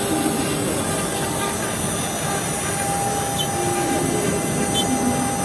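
CNC router spindle running at speed while its cutter cuts out printed sheet along the design outlines: a steady high whine over continuous cutting noise.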